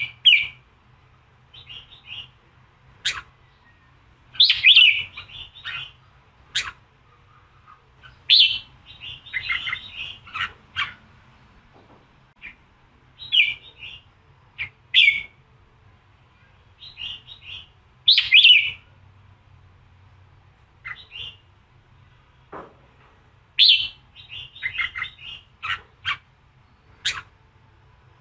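Red-whiskered bulbul singing in short bursts of bright chirping phrases every couple of seconds, with quiet gaps between: the combative male 'giọng kình' song played to fire up other male bulbuls.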